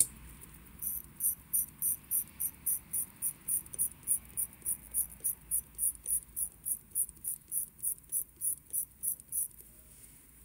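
Crown of a Ulysse Nardin UN-118 watch movement being turned between the fingertips, its ratchet giving short, high-pitched clicking bursts at an even pace of about three to four a second, after a single sharp click at the start. The clicking stops abruptly near the end.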